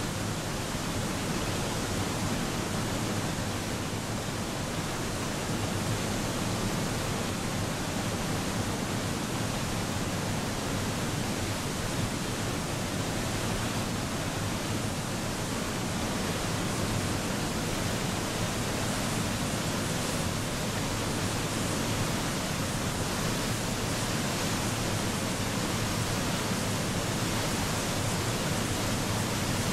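Steady noise of a large waterfall: the Nile pouring through the gorge at Murchison Falls, with no change in level throughout.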